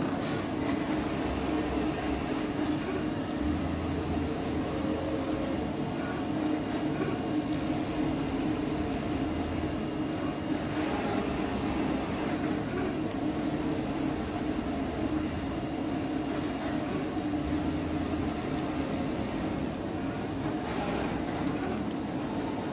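AOKE DCZ70 flatbed CNC cutter at work cutting and V-groove cutting corrugated plastic sheet: a steady machine hum with the whir of the cutting head's drive as it travels, and now and then a brief low rumble.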